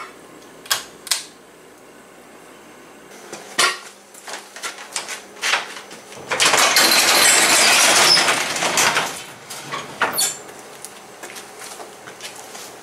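A pull-chain light switch clicks twice, then a manually lifted sectional garage door rattles up along its metal tracks for about three seconds. Scattered knocks and clatter surround it.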